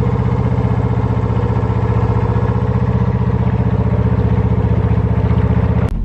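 Narrowboat engine running steadily as the boat putters along the canal, a fast even beat with a low hum.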